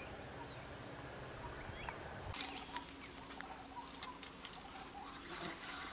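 Dry grass and twigs crackling and rustling under hands working at ground level, starting about two seconds in as scattered small clicks and crackles.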